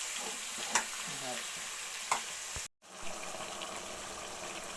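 Onion, ginger and tomato sizzling in hot oil for a tadka, a steady frying hiss with two sharp clicks of a utensil. The sizzle cuts out for an instant just past halfway, then carries on.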